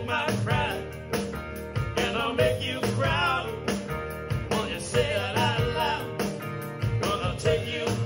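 Rock song with singing, drums and guitar, played back through a Dockin D Fine Bluetooth speaker.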